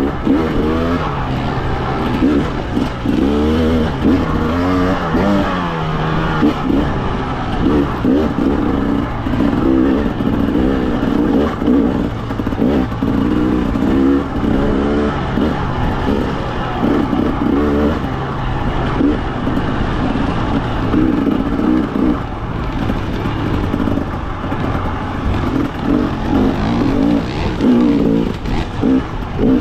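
Husqvarna TE300 single-cylinder two-stroke dirt bike engine revving up and down again and again while being ridden on trail, the throttle opening and closing every second or two.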